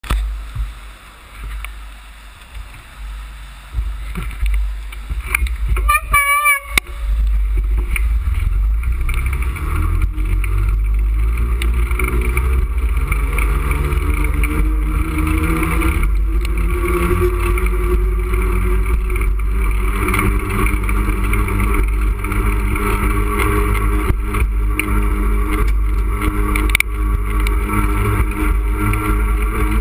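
Wind rushing over a moving action camera's microphone, a steady heavy rumble from about seven seconds in, mixed with traffic on the roadway alongside. Before that, uneven knocks and rustles from the camera being handled, and a brief warbling tone about six seconds in.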